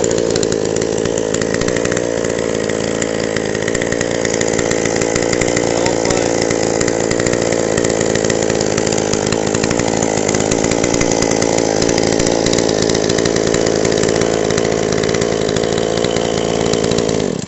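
Two-stroke chainsaw running steadily, fitted with a noisier muffler and its carburettor low and high mixture screws freshly adjusted. It cuts off suddenly at the very end.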